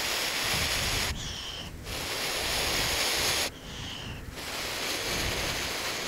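A person blowing three long, steady breaths into a smouldering tinder bundle, with short in-breaths between, to coax an ember to flame.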